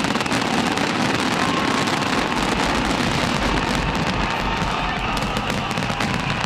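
A large fireworks display going off continuously, many shells bursting and crackling in quick succession as a dense, even crackle.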